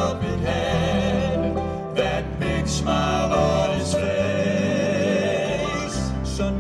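Southern gospel group performing: a man singing lead with vibrato over a steady bass line and band accompaniment.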